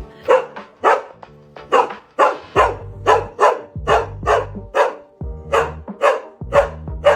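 A dog barking over and over, about two barks a second, which the owners guess is the dog worried that the cat they are holding might hurt them. Background music underneath.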